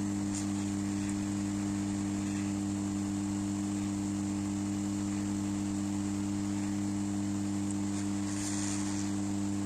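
Hot air rework gun's blower running at full, a steady low hum with a faint airy hiss.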